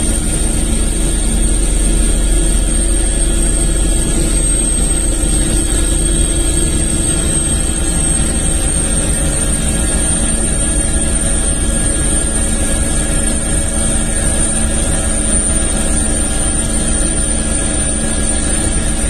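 Helicopter in flight: a steady low engine and rotor drone under a constant high turbine whine.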